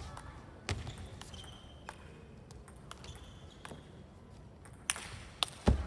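Table tennis rally: the celluloid-type ball clicking sharply off rubber rackets and the table, roughly every half second to second, with faint shoe squeaks on the court floor. A heavy low thump near the end is the loudest sound.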